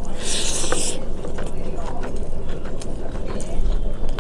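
Close-miked eating sounds: chewing and small wet clicks of food and mouth, with a short crisp rustling crunch in the first second.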